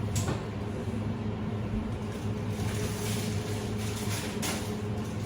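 Steady hum of a running kitchen fan, with a few short clicks and rustles of kitchen handling over it.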